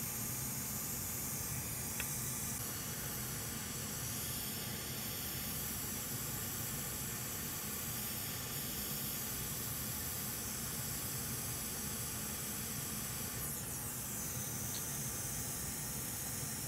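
Hot air rework station blowing a steady hiss onto a laptop motherboard, heating a small power chip to desolder it. A faint tick about two seconds in.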